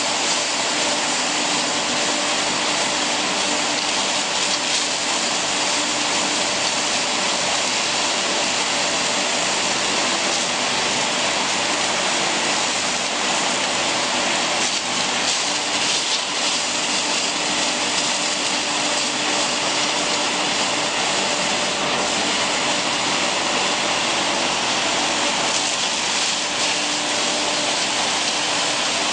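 Hammer mill and its blower fan running with a loud, even machine noise and a steady hum, crushing pieces of wood as they are fed into the hopper.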